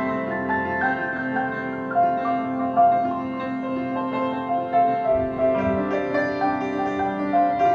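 Solo piano playing a melody over sustained chords, with deeper bass notes coming in about five seconds in.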